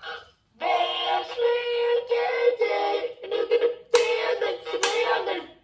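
A toy sound horn plays an electronic song with synthetic-sounding vocals through its small built-in speaker. It starts about half a second in, with short breaks near the end.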